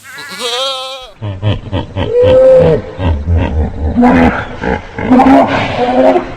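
A sheep's bleat trailing off, then an animal's repeated low grunting mixed with short higher-pitched cries from about a second in.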